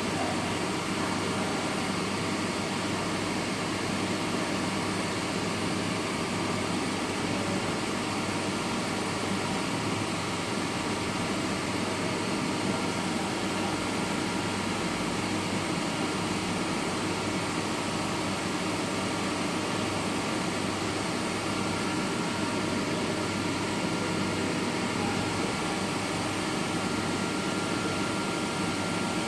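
Steady machine hum with a faint high whine, unchanging throughout.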